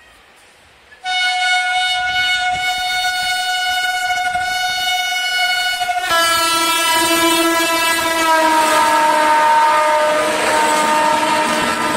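Rajdhani Express locomotive sounding one long horn blast as the train runs through a station, starting about a second in. The horn's pitch shifts about halfway through and then slides down as the locomotive passes close by, with the rush and clatter of the passenger coaches going past at speed.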